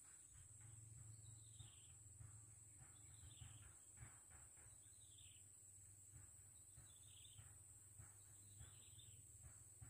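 Faint outdoor ambience: a bird repeating a short, falling call about every second and a half, over a steady high-pitched drone.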